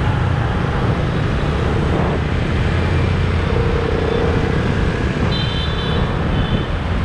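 Steady rumble of a motor scooter being ridden through dense city motorbike traffic, heard from the pillion seat. Near the end a brief high-pitched beep sounds twice.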